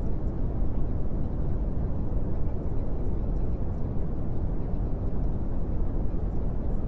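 Steady, low-pitched noise with no distinct events, even and unchanging throughout.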